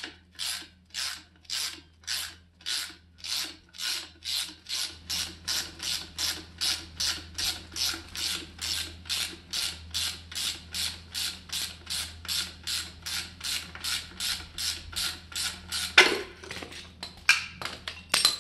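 Ratchet wrench spinning off the 17 mm top nut of a MacPherson strut, its pawl clicking in short even strokes about two and a half times a second. Near the end come a couple of louder metal clanks as the nut and top mount come free.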